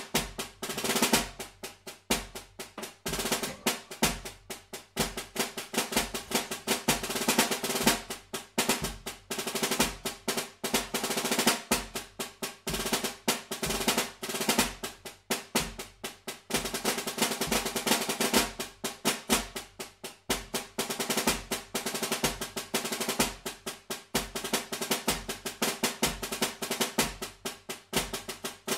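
Snare drum played in a rudimental solo: fast rolls and strokes with accents and changing dynamics. A low beat thumps under it about every three-quarters of a second.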